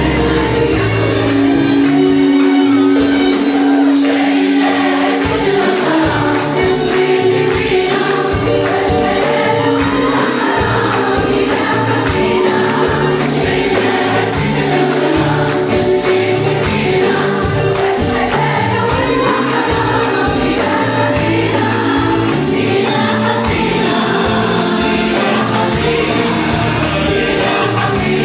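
Large mixed choir singing a traditional Moroccan song in polyphonic arrangement, accompanied by an orchestra with violins and oud and a steady percussion beat.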